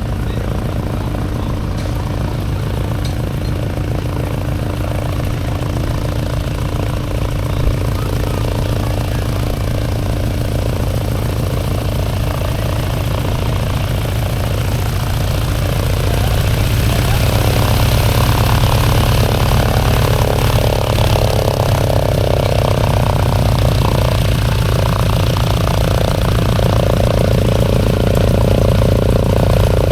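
Radio-controlled model airplane engine running steadily, growing louder about halfway through.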